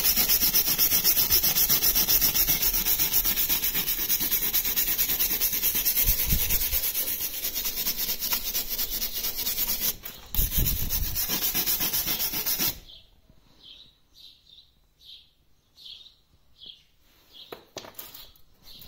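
An abrasive sponge scrubbing a cast brake caliper in fast, continuous strokes, scouring off dirt and burnt-on grime to prepare it for paint. The scrubbing pauses briefly about ten seconds in and stops at about thirteen seconds. Only faint, scattered small sounds follow.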